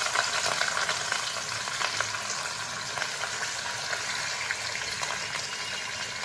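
Katla fish pieces, rubbed with salt and turmeric, sizzling and crackling as they fry in hot oil in a kadai, with stirring sounds as the pieces are turned over.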